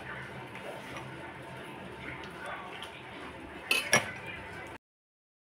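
A metal slotted spoon moving through rice in a metal pot of biryani, with quiet clinks against the pot and two sharp clinks about four seconds in as it knocks the rim. The sound then cuts off suddenly.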